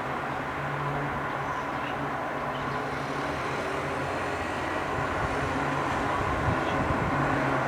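Airliner's jet engines running steadily as it taxis, a constant rumble with a low hum, slowly growing louder. Gusts of wind buffet the microphone in the last couple of seconds.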